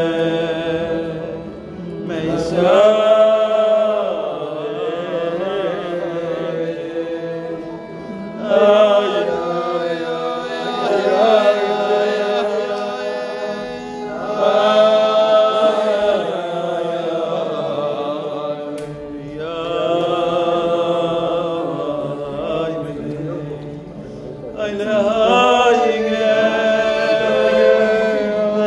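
A group of men singing a slow Jewish melody in long, drawn-out phrases a few seconds apart, over a steady held accompaniment.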